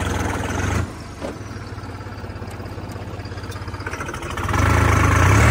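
Tractor diesel engine running under load, easing off about a second in, then revving up hard near the end as the tractor works to drive out of deep mud.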